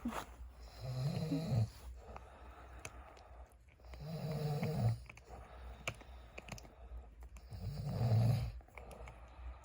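A man snoring in deep sleep: three long, low snores about three and a half seconds apart, with faint clicks between them.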